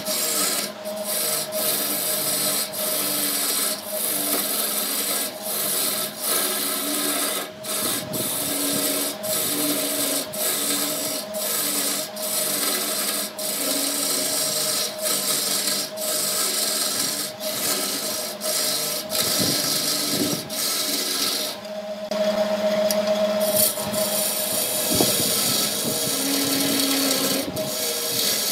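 Hand-held turning chisel cutting a spinning segmented wood-scrap vase on a wood lathe: a steady rasping hiss of shavings, broken by brief dips every second or so as the tool lifts and bites again, over the lathe motor's steady hum.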